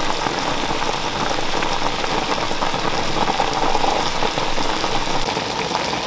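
Juices bubbling and sizzling steadily in the bottom of a pot where a whole jerk chicken is slow-cooking on the stove top, a dense, even crackle.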